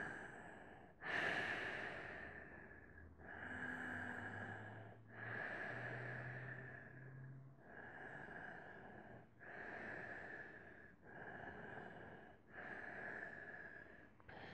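A man breathing slowly and audibly while holding a yoga bridge pose: long, even inhales and exhales, one after another, each lasting about one and a half to two seconds.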